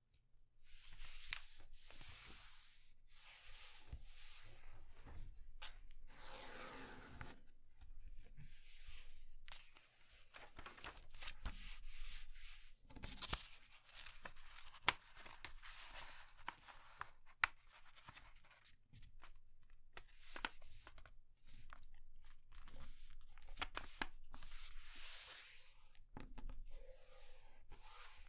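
A sheet of paper being folded by hand on a cutting mat: repeated rustling and sliding as it is lifted, turned and smoothed, with firm creasing strokes and a couple of sharp clicks in the middle.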